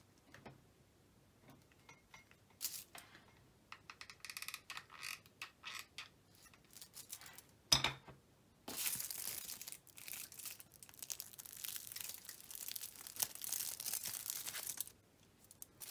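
Aluminium kitchen foil crinkling as it is handled and crumpled: scattered crackles at first, a sharp knock just before the middle, then steady dense crinkling through most of the second half.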